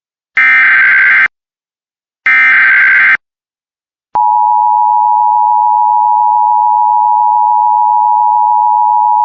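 Emergency Alert System broadcast: two identical harsh, buzzing SAME header data bursts, each just under a second long and about a second apart. About four seconds in, a steady, loud attention tone near 1 kHz begins and holds unbroken.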